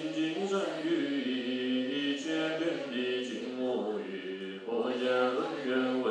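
A male Buddhist monk chanting a Sanskrit mantra in a melodic recitation. Each syllable is held on a steady note, with steps in pitch and short breaks for breath.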